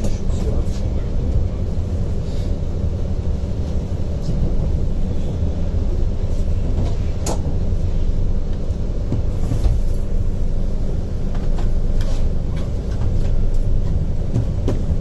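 Steady low rumble of a moving train heard from on board, its wheels running on the rails, with a few sharp clicks and knocks, the sharpest about seven seconds in.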